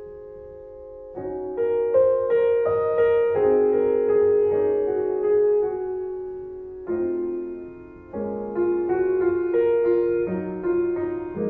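Background piano music: slow, soft chords and single notes struck and left to ring, with a brief lull about a second in.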